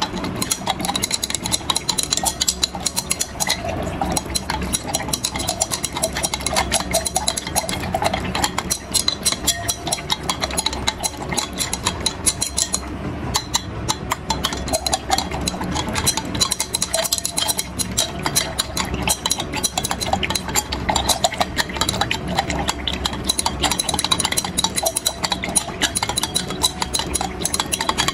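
Glass stirring rod clinking and scraping rapidly against the inside of a glass beaker, steadily stirring licorice powder into distilled water to dissolve it.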